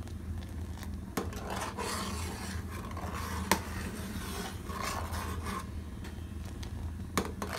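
Steel ladle stirring milk at the boil in a steel pot, scraping along the pot with a few sharp clinks, over a steady low hum.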